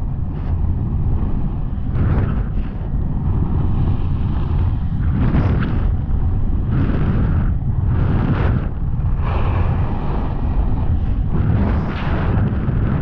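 Wind buffeting the microphone of a snowboarder riding fast down a groomed slope: a loud low rumble. Over it, the snowboard's edge scrapes and hisses on the snow, swelling at each turn every second or two.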